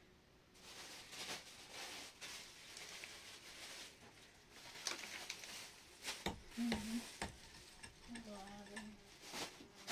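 Irregular scraping and rustling with a few sharp knocks, and two brief low hums about six and eight seconds in.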